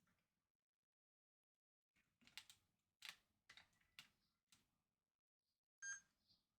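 Faint run of short, sharp clicks and scrapes, several a second, followed near the end by a single brief ringing tick.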